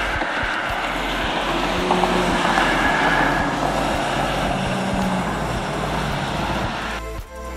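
Prototype Ram heavy-duty pickup truck driving by, a steady mix of engine and tyre noise with road traffic around it. Music comes in near the end.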